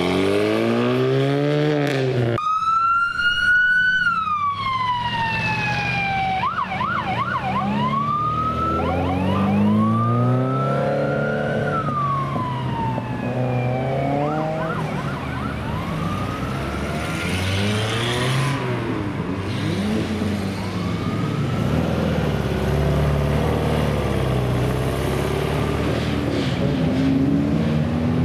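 Car engines revving hard and accelerating away, climbing in pitch through the gears. About two seconds in, a loud siren-like wail rises and then falls away, followed by more shorter rising and falling wails over the engines.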